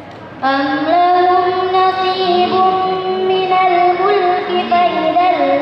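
A girl chanting Quranic recitation in a melodic style. She begins after a short pause and holds long notes whose pitch wavers and bends.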